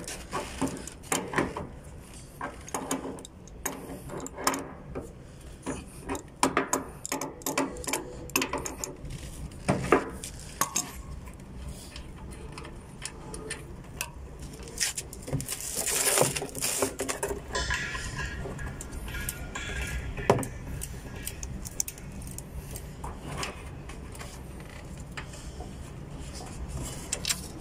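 Metal clicks and clinks, densest in the first ten seconds, from an adjustable spanner lightly tightening the brass flare nut on the suction service valve of an air-conditioner outdoor unit. A brief burst of noise comes about sixteen seconds in.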